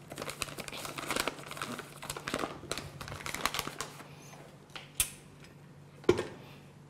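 Crinkling and rustling of a plastic bag of semolina as it is handled and poured into a glass mixing bowl. Near the end comes a sharp click, then a thump as the tilt head of a KitchenAid stand mixer is lowered into place.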